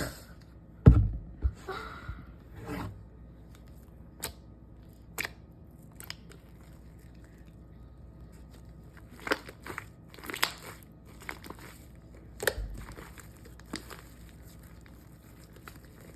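Intermittent handling noise of slime and its plastic containers: scattered crinkles, crackles and clicks, with soft thumps about a second in and again later.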